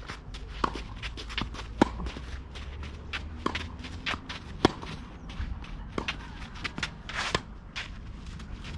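Tennis play on a clay court: sharp ball strikes and bounces, the loudest about one to one and a half seconds apart, with gritty footsteps and shuffling on the clay. About seven seconds in there is a longer brushy scrape of a shoe sliding on the clay.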